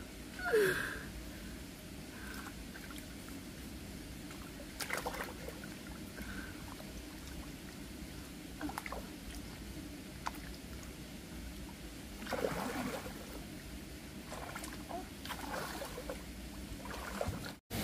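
Water sloshing and splashing in a few short bursts over a steady low background. The loudest comes about half a second in, a brief sound falling in pitch.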